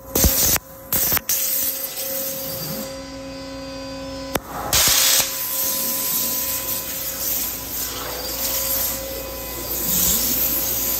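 Flow CNC waterjet cutting metal sheet: the high-pressure jet gives a steady loud hiss. The hiss breaks off abruptly a few times near the start, and a sharp click about four seconds in is followed by a louder burst of hiss lasting about a second.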